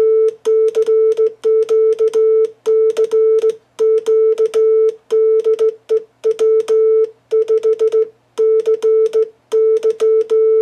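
Code practice oscillator sounding a steady, mid-pitched beep, keyed by hand on a J-38 straight key into Morse code of short and long elements, with a click at each make and break of the key.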